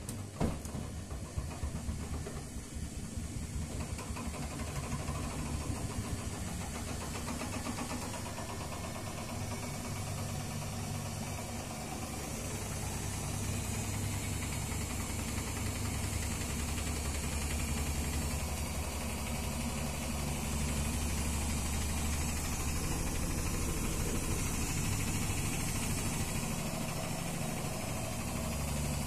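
Front-loading washing machine on its spin cycle with an unbalanced load. A sharp knock comes about half a second in, then irregular knocking for the first few seconds as the drum picks up speed. After that the drum settles into a steady low rumble and whir.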